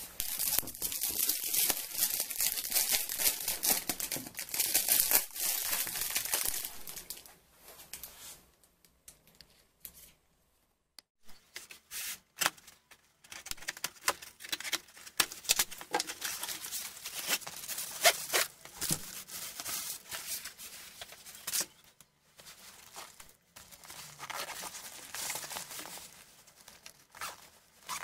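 Thin plastic film wrapping crinkling and tearing as it is pulled off a packaged fabric bag. A dense rustle runs for the first six seconds or so, then stops briefly about ten seconds in, and is followed by scattered crackles and handling knocks.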